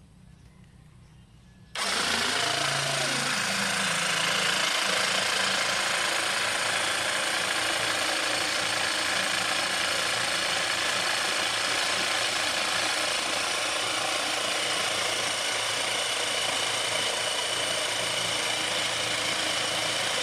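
A homemade 12-volt water pump driven by an old motorcycle starter motor switches on abruptly about two seconds in and runs steadily. Water gushes from the plastic outlet pipe and splashes into the pool below.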